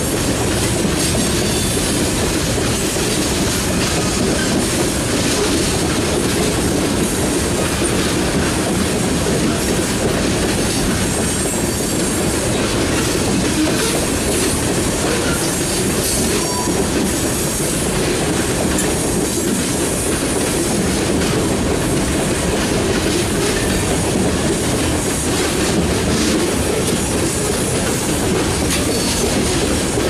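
Covered hopper cars of a sand train rolling steadily past close by: a continuous rumble of steel wheels on rail with clickety-clack over the rail joints and a few brief, faint wheel squeals.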